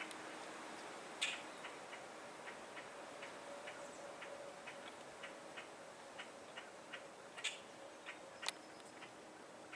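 Faint, irregular ticking clicks, roughly two or three a second, with a few sharper, louder clicks (about a second in, and twice near the end), over a low steady hum.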